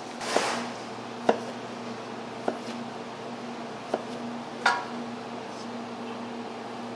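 Five sharp clinks and knocks of kitchen utensils and dishes, spread over about five seconds, the first with a brief scrape. Under them runs a steady machine hum of kitchen equipment.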